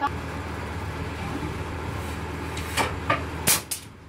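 Cardboard retail box handled and turned over in the hands: a few short scrapes and taps near the end, over a steady low background rumble.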